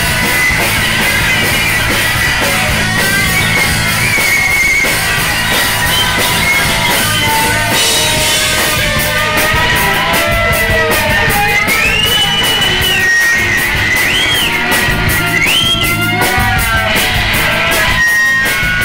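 Live rock band playing loud, with electric guitars, bass and a drum kit. About two-thirds of the way through, high notes slide up and down.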